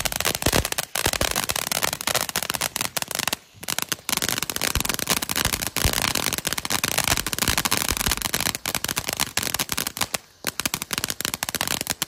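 A ground fountain firework with 113 g of composition burning, throwing sparks with a dense, rapid crackle from crackling stars, in several phases with short breaks between them.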